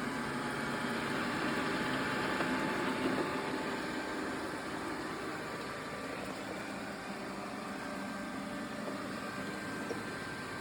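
Xiaomi Robot Vacuum S20 running while vacuuming and mopping, its suction fan and brushes making a steady whir, a little louder in the first few seconds.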